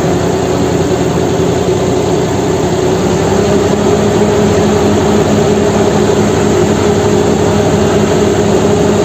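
Loud, steady mechanical drone like a running engine, with a constant hum that does not change in pitch or level.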